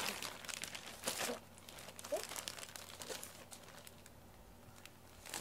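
Plastic bags and packaging rustling and crinkling as they are handled. The loudest burst comes about a second in, followed by fainter rustles.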